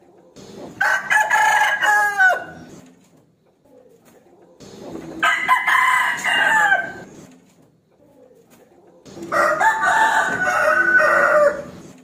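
A rooster crowing three times, about four and a half seconds apart, each crow lasting two to three seconds.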